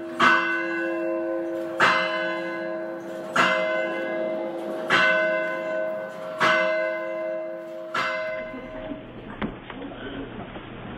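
A single church bell tolling, struck six times about every second and a half on the same pitch, each stroke ringing on into the next; the ringing dies away after the last stroke near the end.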